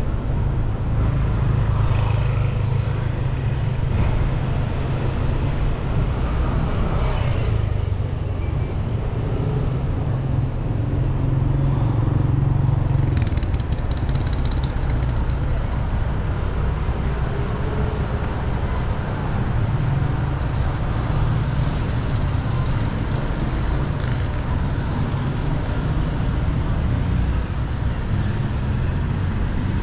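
Street traffic noise with a constant low rumble.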